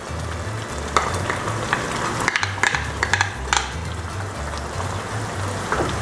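A wooden spoon stirring and pushing string beans into a pan of simmering peanut sauce, against a steady hiss from the hot pan. Several sharp clicks of the spoon and beans against the pan fall in the middle.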